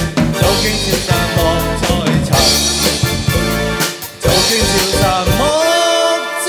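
Male vocalist singing live into a microphone over keyboard and drum accompaniment. A little over five seconds in, the bass and drums drop out, leaving held chords under the voice.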